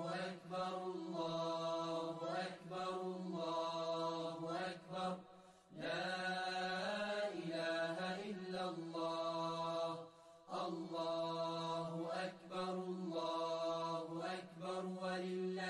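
Chanted vocal music: a single voice sings long, slightly wavering notes in phrases over a steady low drone. There are brief pauses about five and ten seconds in.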